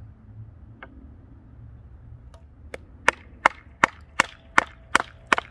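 A quick run of sharp wooden knocks, about eight in a row at nearly three a second, starting about halfway in. A knife is being batoned down into a block of basswood.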